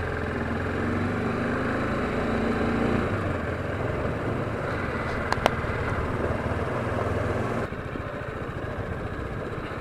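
Motorcycle engine running at a steady low cruise on a gravel dirt track, with a couple of sharp ticks about five seconds in. The engine sound drops and thins near the end.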